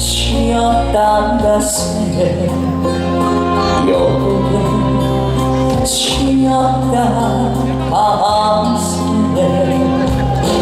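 Loud trot band music over a PA: sustained keyboard chords over a steady bass line, with a cymbal crash at the start and three more, about every two to four seconds.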